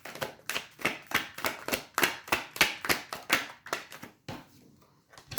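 Tarot cards being shuffled by hand: a quick, even run of papery slaps, about three or four a second, that stops about four seconds in.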